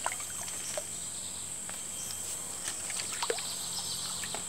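Outdoor stream-side ambience: a steady high-pitched insect drone, with scattered light clicks and rustles close to the microphone.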